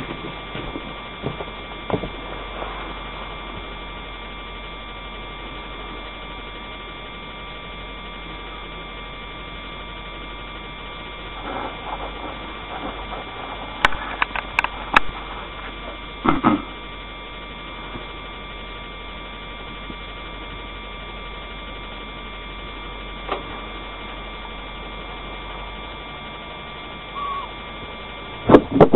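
Steady electrical hum of the recording device, several fixed tones held throughout. Scattered short clicks and knocks come from the camera being handled, with a cluster in the middle and the loudest near the end.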